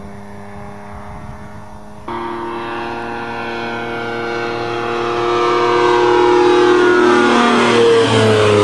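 Two-stroke engine of a small floatplane droning as it flies low past overhead. It grows louder and drops in pitch as it passes near the end.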